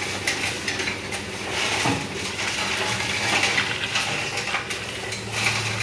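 Shovels and rakes scraping and clinking against the steel tailgate of a tipped dump truck as asphalt mix is worked out of the bed, with scattered short clinks throughout. The truck's engine runs steadily underneath, its hum growing louder near the end.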